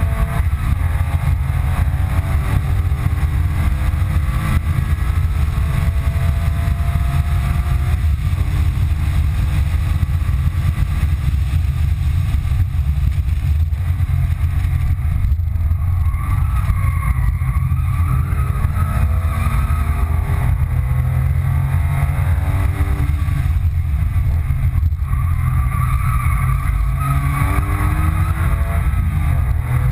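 Inside the cabin of a 2005 Porsche 997 Carrera 2, its flat-six engine pulls hard under load, the engine note climbing and dropping again several times as the car accelerates and shifts gear, over a steady low rumble of road and wind noise.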